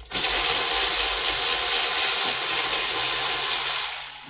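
A loud, steady jet of pressurised gas hissing for about four seconds, starting and stopping abruptly.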